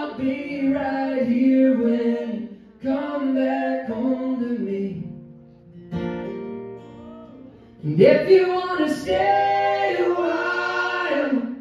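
Live folk-rock band: several male voices singing together over strummed acoustic guitars, in sung phrases with short breaks, dropping quieter in the middle and swelling into a louder phrase near the end.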